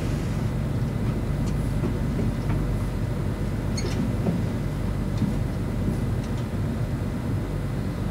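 Soundtrack of a TV drama episode playing back: a steady, low rumbling drone with a few faint clicks, and no dialogue.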